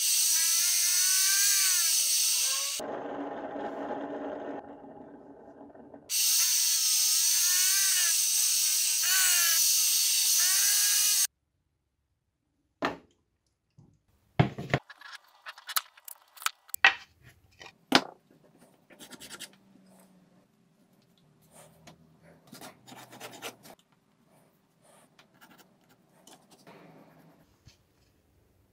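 Disc sander grinding the curved edge of plywood pieces, with a whine that rises and falls as the wood is worked against the disc. It cuts off abruptly twice, and after the second stop there are scattered knocks and handling of the wooden pieces.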